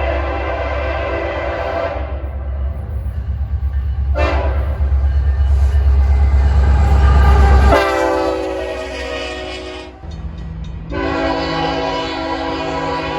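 A train locomotive blowing its horn in long blasts: one ends about two seconds in, a longer one runs from about four to ten seconds, and another starts near eleven seconds. A heavy low rumble of the passing train lies under them. The horn's pitch drops sharply about eight seconds in as the locomotive goes by.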